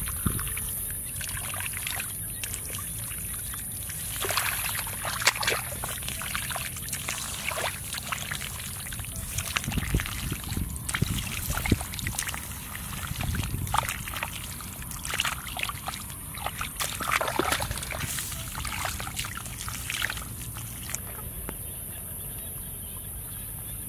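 Wet mud and shallow muddy water sloshing and splashing in irregular bursts as bare hands dig and scoop through a flooded rice field.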